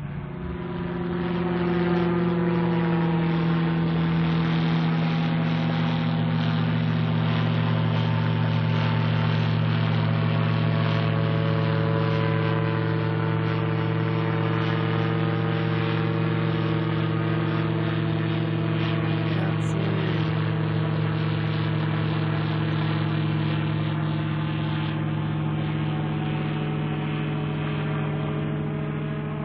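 Gyrocopter's engine and pusher propeller droning steadily as it climbs and flies overhead, swelling over the first couple of seconds and easing slightly near the end.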